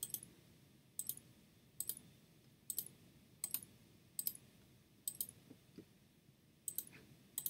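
Computer mouse button clicks, about eight sharp clicks at roughly one a second, each placing a point of a lasso selection line.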